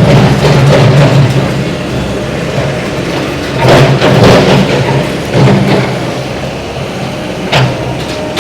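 Heavy demolition machine's engine running and working under changing load, with crashes and thuds of brick debris about four seconds in and again near the end.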